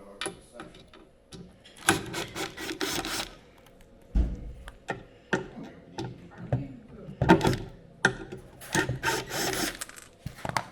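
Wooden cabinet drawer being worked on by hand: two bursts of scraping and rubbing, each a second or so long, with sharp knocks and clicks between them.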